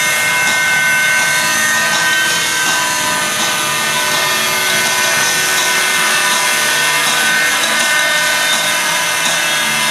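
Radio-controlled model helicopter in flight, its small high-revving engine and rotors making a steady high-pitched whine that wavers a little in pitch.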